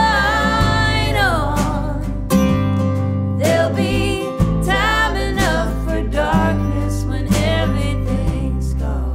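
A woman singing over a strummed acoustic guitar and electric bass; she holds a long note at the start that slides down, then sings shorter phrases.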